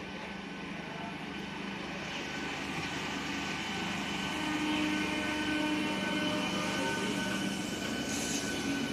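Train approaching on the tracks, its rumble and rush growing steadily louder, with a steady whine held over it.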